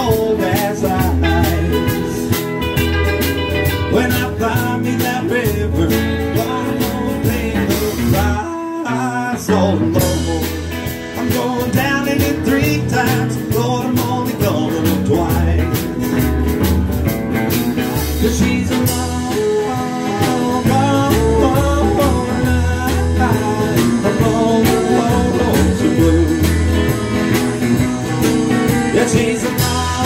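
Live blues band playing a shuffle with guitar, bass and drums, with a steady beat and a deep bass line. The music drops out for about a second roughly nine seconds in, then picks up again.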